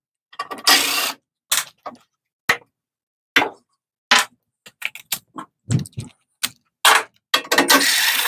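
Cordless driver running in short spells as it backs hex-head bolts and Phillips screws out of a snowblower engine's sheet-metal cover, with sharp metal clinks and clatter in between; the longest runs come just after the start and near the end.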